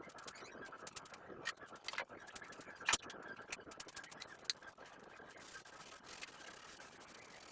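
Kitchenware clinking and scraping: scattered light clicks and scrapes, with one sharper knock about three seconds in. A faint steady hiss comes in for the last two seconds.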